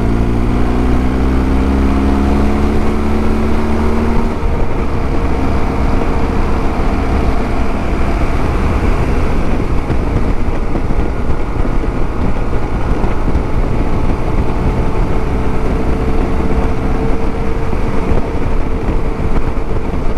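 Motorcycle engine pulling up through the revs for the first four seconds or so, then running steadily at cruising speed. Heavy wind noise and road rumble come from riding at speed.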